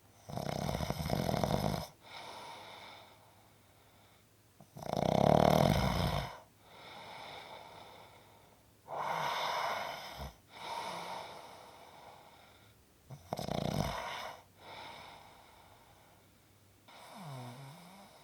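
A person snoring in sleep: four loud snores about four seconds apart, each followed by a quieter breath, then a softer breath with a wavering pitch near the end.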